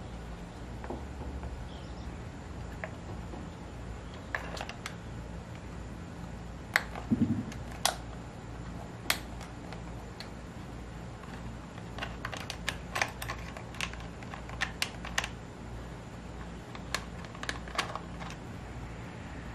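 Scattered light clicks and taps of hands handling the plastic housing and parts of a Husqvarna 323L string trimmer and of a small Allen key, with a brief rattle about seven seconds in, over a steady low hum.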